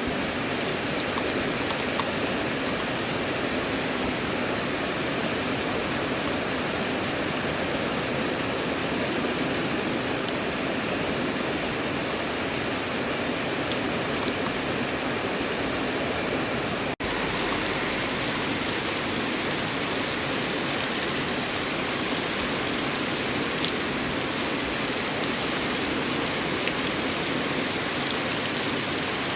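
Steady rain falling, an even hiss with a few sharper drop ticks here and there, broken by a momentary cut about 17 seconds in.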